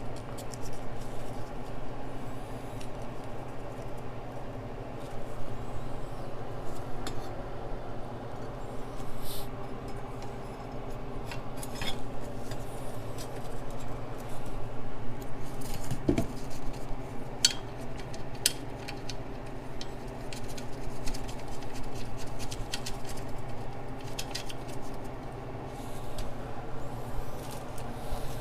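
Scattered light metallic clicks and clinks of hand tools and nuts on the turbo and exhaust manifold studs as the fasteners are fitted back on, over a steady low hum.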